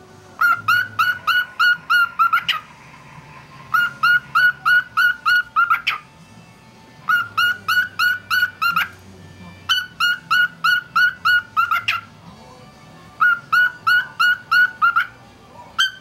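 Male cockatiel singing: five runs of quick, repeated whistled notes, about four notes a second, each run about two seconds long with short pauses between.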